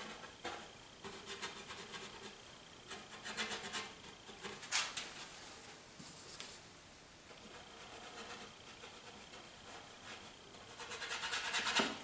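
Bristle brush rubbing oil paint in short scrubbing strokes, with a louder run of strokes on the canvas just before the end.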